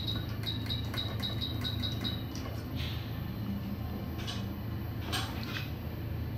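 A quick run of short, high electronic beeps, about four a second for some two seconds, from electronic bench equipment. A few scattered clicks follow, over a steady low hum.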